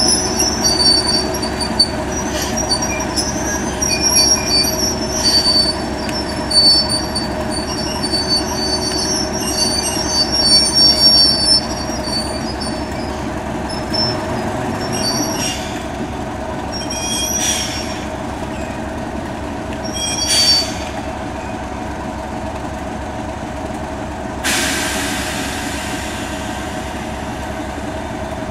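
Class 37 diesel locomotive's English Electric V12 engine running steadily, with intermittent high-pitched metallic squealing from the train's running gear for the first twelve seconds or so. A few short sharp noises follow, and a sudden steady hiss starts near the end.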